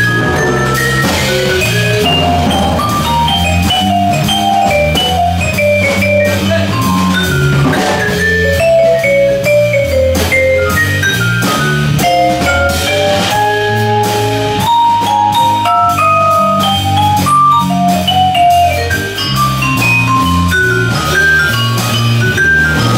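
Jazz vibraphone solo of quick mallet runs in a waltz tune, over bass and drum kit with cymbals.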